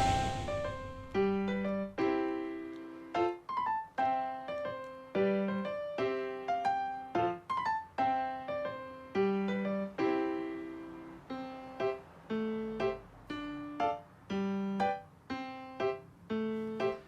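Background music: a light, bouncy tune played on a piano-like keyboard, with regular bass notes under a simple melody.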